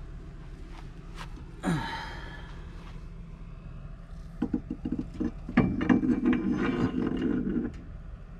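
Golf cart rear axle shaft being pushed by hand into its axle housing: a run of clicks, then a rough metal-on-metal scraping for about two seconds. A short falling whine comes about two seconds in.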